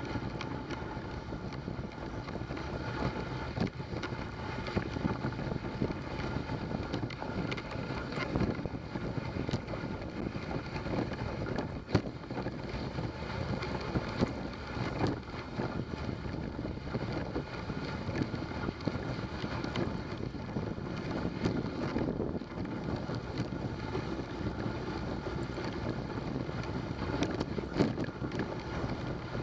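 Dog sled gliding along a snowy trail: a steady hiss and rumble of the runners over the snow, with wind on the microphone. There are a couple of sharp knocks, about twelve and fifteen seconds in.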